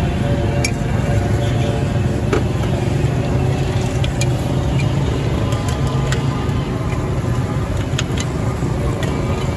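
Steady low rumble of a busy street, with a few short sharp clicks scattered through it.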